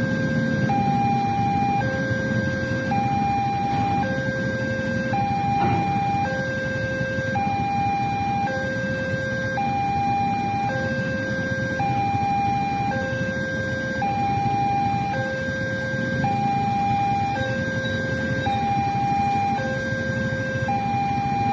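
Railway level-crossing warning alarm sounding its electronic two-tone signal, a lower and a higher tone alternating about once a second without a break, warning that a train is approaching and the crossing gate is closed. A low traffic rumble runs underneath.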